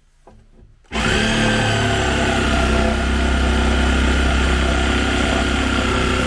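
A cordless power tool starts up about a second in and runs steadily at full speed against an old wooden stair tread, with a constant high whine over a low motor hum.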